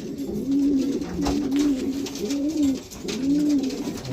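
Racing pigeons cooing, many low rolling coos overlapping and repeating several times a second, with a few light clicks among them.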